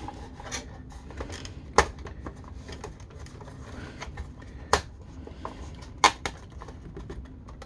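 Hard plastic toy parts clicking and knocking as they are pushed and worked into place, with four sharp, louder snaps among many small clicks: one about two seconds in, one just before five seconds, and two close together around six seconds.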